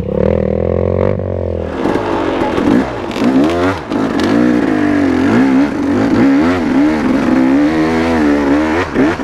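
Dirt bike engine being ridden on a trail, revving up and down, its pitch rising and falling every second or so. A rushing noise joins in about two seconds in.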